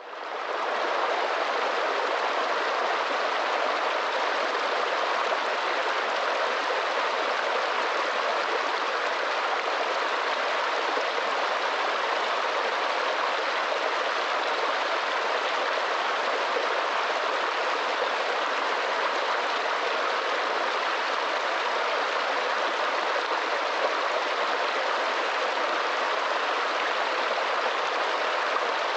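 Mountain stream running over rocks: a steady rush of water that fades in over the first second.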